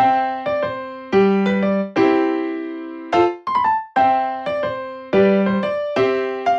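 Background music: a gentle piano melody of single struck notes and chords, each note ringing and fading before the next.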